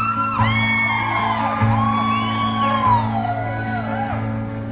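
Acoustic guitar played slowly, a chord struck about every second and a quarter, while several audience members whoop and yell over it in a large hall.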